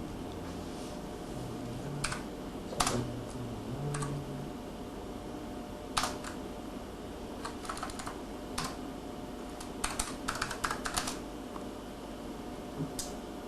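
Keystrokes on a computer keyboard: irregular single taps and short runs of typing, busiest around ten to eleven seconds in, over a steady electrical hum.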